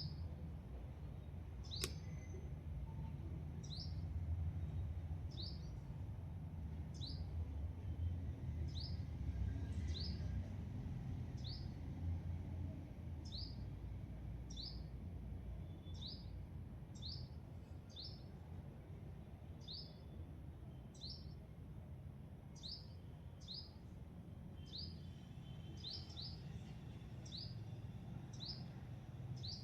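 A bird giving a short, high chirp over and over, about once a second, over a steady low rumble.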